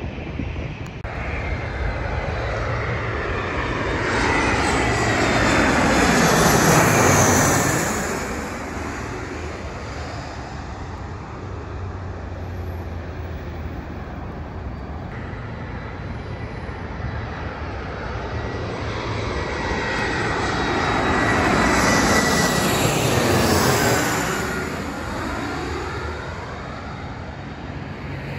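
Two jet airliners passing low overhead on final approach, one after the other: each builds over several seconds to a loud rush of engine noise with a whine that falls in pitch as it goes by, then fades.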